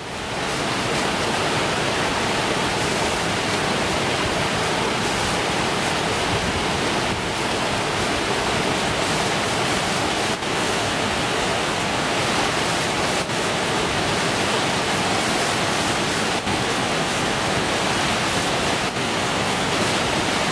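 Steady rush of flowing water, an even hiss that does not change or break.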